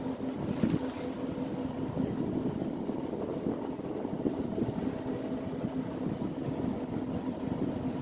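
Panasonic CS-YN9RKJ split air conditioner indoor unit running, its fan blowing air out through the open louvres with a steady low hum.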